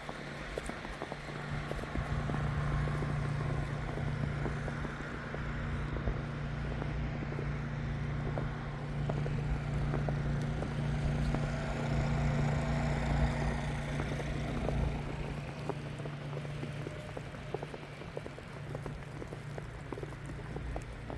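City street sounds with a motor vehicle running close by: a low, steady engine hum that builds, peaks midway and then fades as it passes, over a background hiss scattered with faint clicks.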